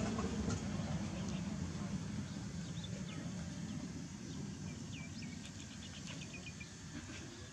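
Outdoor background with a low rumble that slowly fades. About five seconds in comes a rapid run of short, high chirps, a small bird's trill.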